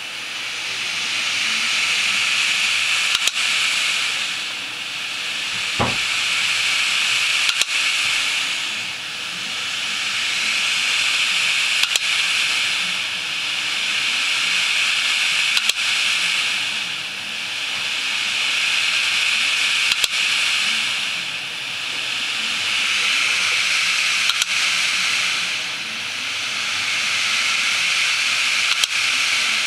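Western Digital WD2500JB 250 GB IDE hard drive clicking about once every four seconds, over a steady hiss that swells and fades in the same rhythm, with a brief falling whine about six seconds in. The drive is faulty; the owner does not know the cause and wonders whether a new circuit board would fix it.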